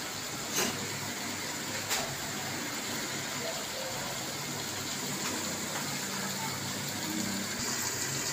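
Potato and tomato masala sizzling and bubbling in an aluminium pot on a high flame, being fried down until the oil separates. A metal spoon knocks against the pot twice in the first two seconds.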